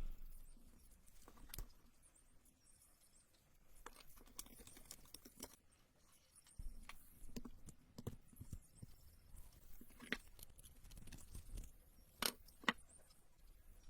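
Quiet handling of small hard parts: scattered light clicks, taps and rustles, with two sharper clicks about twelve seconds in.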